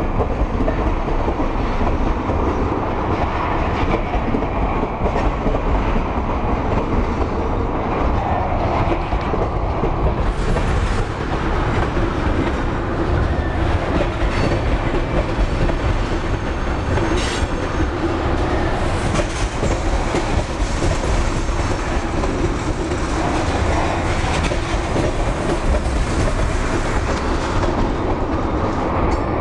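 Tank cars of a freight train rolling past close by: a steady rumble of steel wheels on rail. The noise turns brighter and hissier about ten seconds in.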